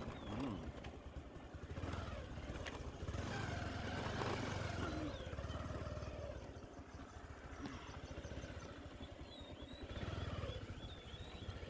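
Motorcycle engine running steadily during a ride, with wind and road noise that swells and fades.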